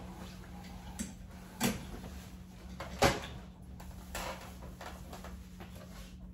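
A few short knocks and clacks of things being handled and set down, the loudest about three seconds in, over a steady low hum.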